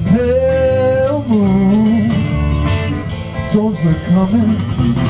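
Live band of drums, bass, electric and acoustic guitars playing, with a lead melody line that slides and bends in pitch above the steady accompaniment.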